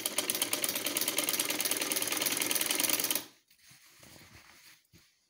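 Vintage black domestic sewing machine running fast, its needle and mechanism clattering in a quick even rhythm as it stitches the collar band onto a cotton kameez. It stops suddenly about three seconds in, and a much softer rattle follows for about a second.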